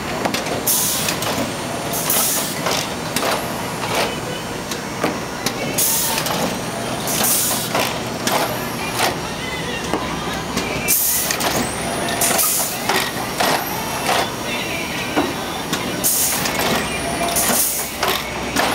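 AWT four-colour automatic screen printing press cycling. Air hisses come in pairs about a second apart, repeating roughly every five seconds, with metal clanks and squeaks from the moving press between them.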